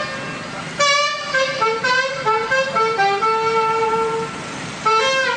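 Alto saxophone playing a melodic phrase of held and moving notes over the PA while its level is set during a sound check, with strong note attacks about a second in and near the end.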